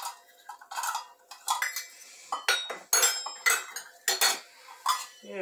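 Utensils clinking and tapping against a glass mixing bowl while sugar goes into softened cream cheese: a string of sharp, irregular clinks, several with a brief ring.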